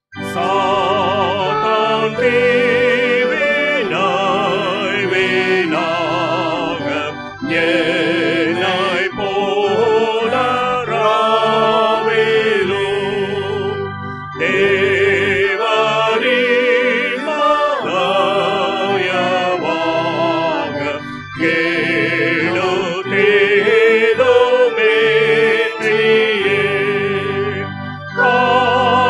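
Tamil hymn sung with keyboard accompaniment, the voices wavering with vibrato over sustained chords, in phrases of about seven seconds with brief breaks between lines.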